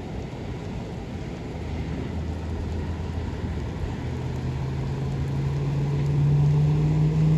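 A low rumble, then a motor hum that rises slowly in pitch and grows louder from about halfway through.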